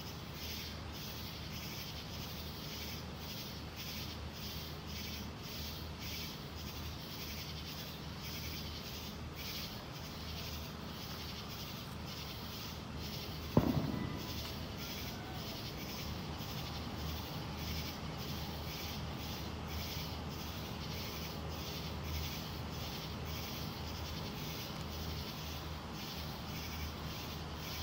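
Night insects calling in a steady, rhythmic pulsing chorus, over a low steady hum. About halfway through comes one sharp firework bang with a short echoing tail.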